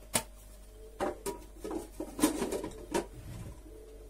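Rustling and crinkling of a packet of bay leaves being handled, a string of short crackles and clicks that is busiest about two seconds in, with a soft low thump a little after three seconds.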